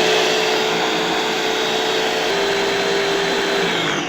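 Electric kitchen chopper (mini blender) running at full speed, its motor whining steadily as the blades churn onion and milk into a froth. Near the end it is switched off and the whine starts to fall in pitch as the motor spins down.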